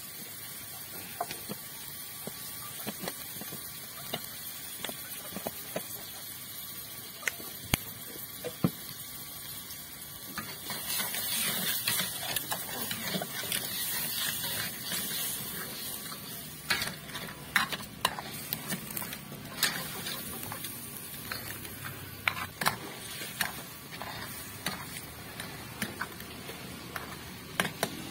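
Blue crabs frying in hot oil and sauce in a wok, a steady sizzle with scattered pops. About ten seconds in, the sizzle grows louder for several seconds. In the second half a metal spatula scrapes and knocks against the wok as the crabs are stirred.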